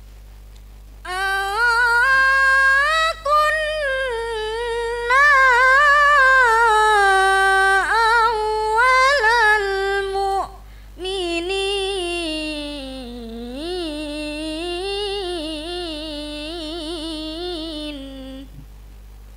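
A young girl's voice reciting the Qur'an in the melodic qiraah style through a microphone: two long phrases, the first starting about a second in and the second after a short breath near the middle, ending shortly before the end. A steady low electrical hum lies underneath.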